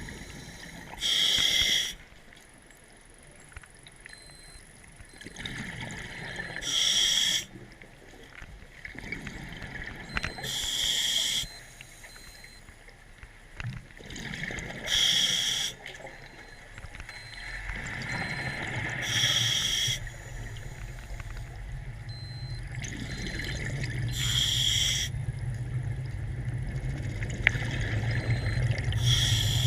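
A scuba diver breathing through an open-circuit regulator underwater: a quieter inhale hiss, then a loud burst of exhaled bubbles about every four seconds. In the second half a low hum grows steadily louder.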